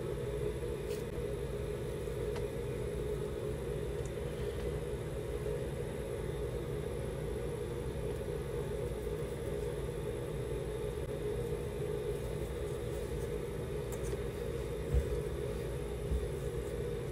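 Steady low background hum, even throughout, with two short soft thumps near the end.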